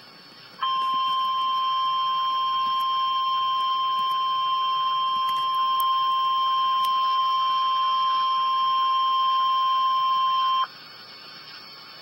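Emergency Alert System warning alarm: one steady tone just above 1 kHz, the National Weather Service's 1050 Hz alert tone, held for about ten seconds and then cut off sharply. It is the signal that a warning message, here a severe thunderstorm warning, is about to be read.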